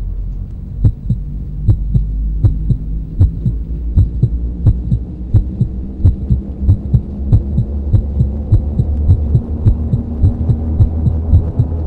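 Heartbeat sound effect of paired low thumps over a steady low drone, the beats gradually quickening.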